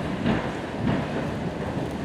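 Hoofbeats of a show-jumping horse cantering on soft sand footing: dull low beats about every two-thirds of a second, one per stride, over a steady background haze.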